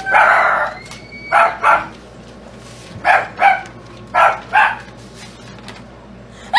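A dog barking: one longer bark at the start, then three quick double barks spaced about a second apart.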